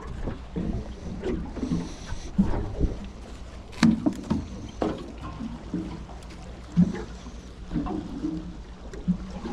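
Water slapping and knocking against the hull of a small fishing boat over a steady low rumble of wind, in irregular bumps.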